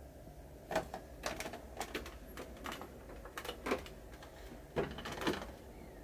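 Irregular clicks and knocks on the hard plastic of a top-loading washing machine, a dozen or so spread over about five seconds, starting about a second in and stopping shortly before the end.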